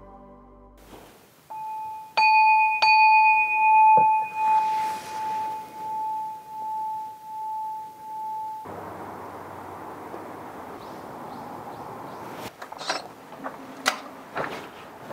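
A bell-like chime struck twice, about two and three seconds in, its single clear tone ringing on and wavering as it fades until it cuts off suddenly. After it a steady hiss of outdoor air with a few sharp clicks and knocks near the end.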